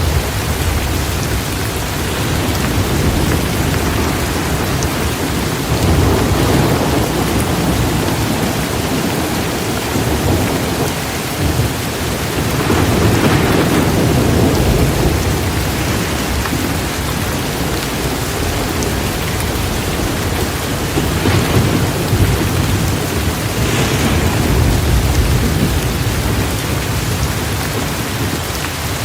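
Heavy rain pouring steadily, a dense hiss. Low rumbles of thunder swell and fade a few times through it.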